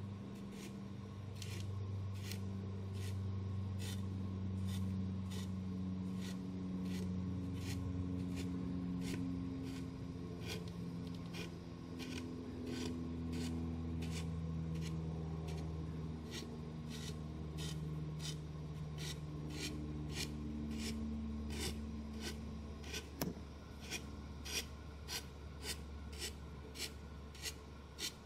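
Heated engraving tip of a hot wire foam cutter scratching short strokes into high-density foam board to carve brick courses: an even series of brief scratchy rasps, about one or two a second, turning sharper and louder near the end.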